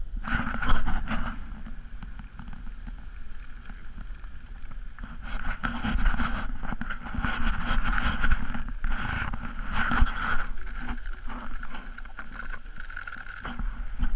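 A car driving fast on a snowy road: a steady engine-and-tyre rumble with wind rushing over the microphone, swelling louder about a third of the way in and again near the end.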